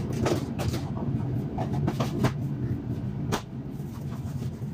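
Light rustling and clicks of a wall cabinet being opened and disposable plastic gloves being taken out and pulled on, with one sharper click a little past three seconds in, over a steady low machine hum.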